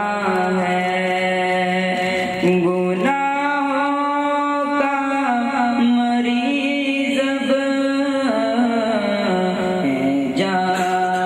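A young man's solo voice singing a naat (Urdu devotional praise poem), drawing out long held notes that step up and down in pitch, with short breaks between phrases.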